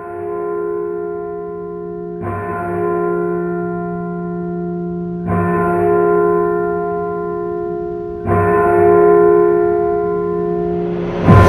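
A deep bell tolling four times about three seconds apart, the same ringing note each time, each stroke sustaining under the next and a little louder than the last. Near the end a louder crashing hit with a rush of hiss lands on top of the ringing.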